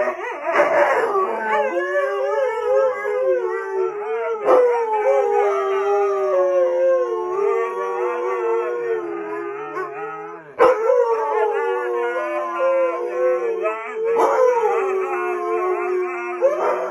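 Huskies howling together: long, wavering howls that slide up and down in pitch, with two or more voices overlapping. The howling drops out briefly about ten seconds in, then picks up again.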